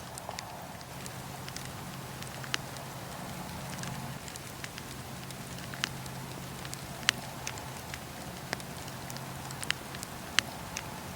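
Wood fire burning in a fireplace, crackling with sharp irregular pops, about six loud ones among many small snaps, over a steady low rumble and hiss.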